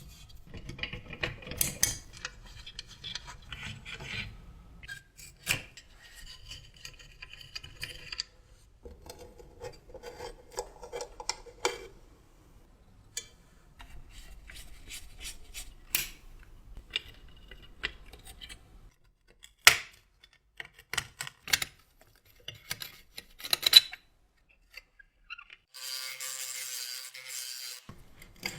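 Small metal parts of a 1950s JEP metal toy locomotive being handled and worked on: scattered clicks and light knocks with stretches of scraping, and about two seconds of rasping noise near the end.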